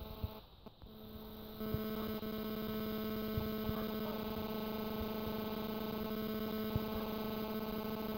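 Steady electrical hum on the recording: one low buzzing tone with a stack of overtones, fainter at first, then louder and constant from about one and a half seconds in.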